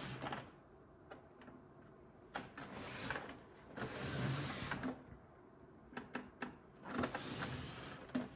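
Plastic printer case sliding and scraping across a wooden tabletop as it is pushed and turned by hand, three scrapes of about a second each with light knocks and clicks of hands on the case between them.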